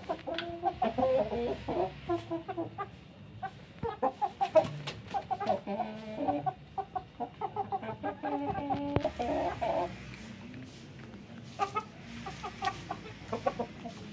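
Chickens clucking: many short, repeated clucks, busy for about the first ten seconds, then sparser.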